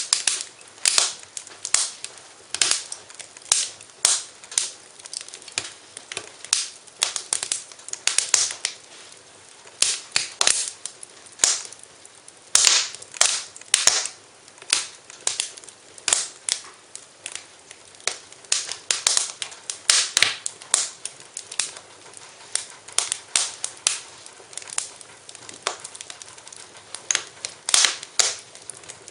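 Fireplace fire crackling: irregular sharp pops and snaps, sometimes several in quick succession, over a soft hiss.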